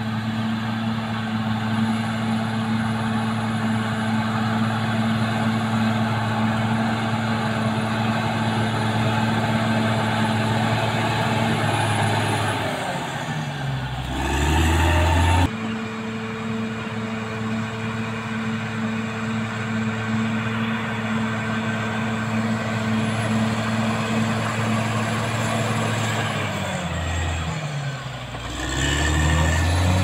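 Caterpillar D6R XL bulldozer's diesel engine running hard at steady revs while the blade pushes mud. Twice the engine note sags in pitch and climbs back as the blade takes the load. A thin high whine runs above it at times.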